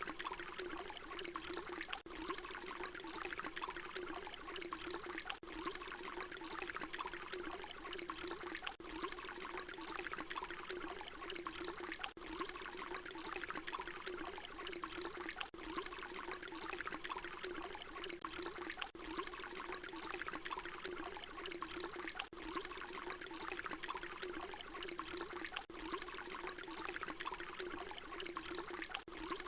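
Water pouring in a steady continuous stream. A brief dropout about every three and a half seconds marks where a short recording loops.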